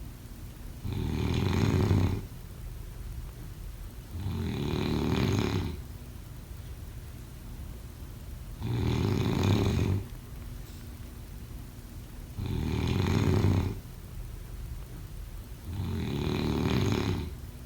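Snoring in a slow, even rhythm: five snores, each a little over a second long, coming about every three to four seconds, with quieter stretches between.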